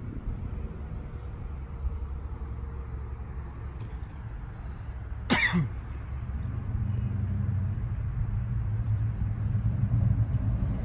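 1971 Chevrolet C10 pickup engine rumbling, getting louder from about two-thirds of the way through as the truck comes closer. About halfway there is a brief sharp sound that drops in pitch.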